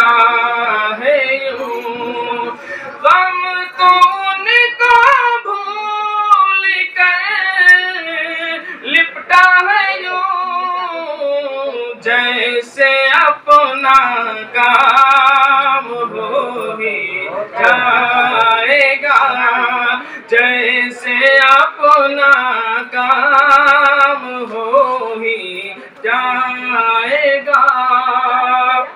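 A single voice sings a naat without instruments, in a high register, with long wavering held notes and ornamented runs.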